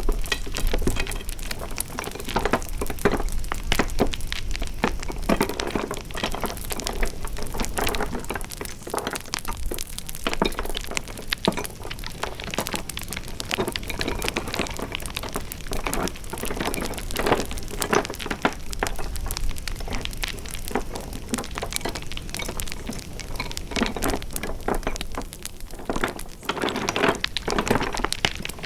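Wood fire crackling: a dense, irregular run of pops and snaps over a soft hiss, with a few louder clusters of pops now and then.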